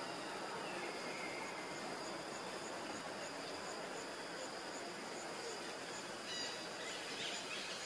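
Outdoor forest ambience: insects keep up a steady high drone and a faint regular chirp a little under three times a second over a background hiss. A brief high-pitched call cuts in about six seconds in.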